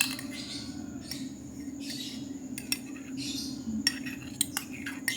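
A spoon clinking and scraping in a container of lime juice and honey, with a few sharp clinks, over a steady low hum.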